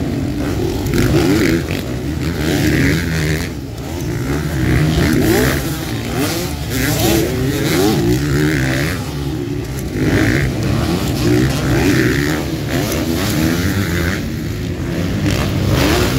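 Several motocross bikes racing, their engines revving up and dropping back again and again as they accelerate out of and brake into turns, the rising and falling pitches overlapping.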